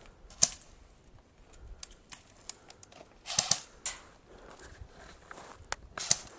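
Airsoft guns firing: a handful of sharp pops, one about half a second in, a cluster around three and a half seconds, and two more near the end.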